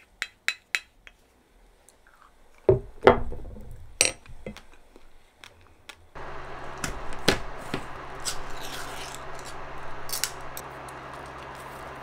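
Wooden spoon tapping lightly against a white ceramic dish, then the dish set down on a table with a few loud knocks. After a cut, a steady low hum with scattered light clicks.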